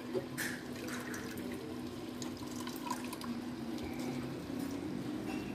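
Thick spinach-and-fenugreek curry bubbling in a clay pot, with scattered small pops and plops over a steady low hum.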